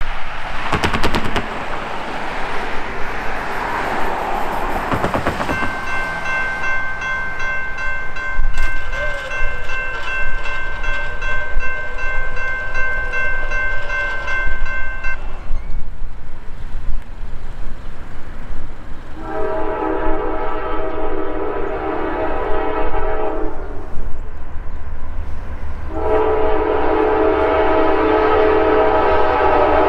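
Grade-crossing bell ringing steadily while the gate arm lowers, stopping about halfway through. Then the approaching Norfolk Southern GE D9-44CW locomotive sounds its horn in two long blasts, the second running to the end, over a low engine rumble. A rush of noise comes before the bell starts.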